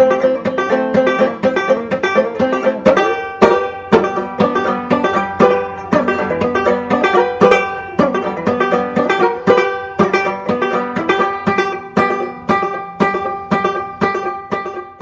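Banjo played clawhammer style: a steady, rhythmic run of plucked notes and strums that dies away at the very end.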